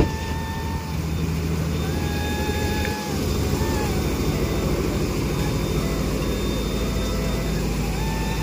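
A large engine running steadily at idle, a low even rumble that dips briefly about three seconds in.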